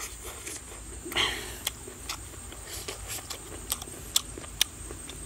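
A person eating with their fingers: wet chewing and lip-smacking clicks, with one longer, louder wet mouth sound about a second in.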